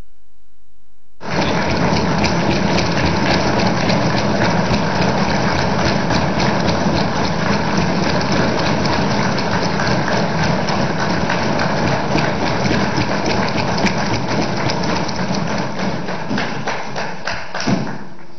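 A hall of legislators applauding with a dense, rapid patter of desk-thumping and clapping. It starts about a second in after a brief silence and dies away near the end.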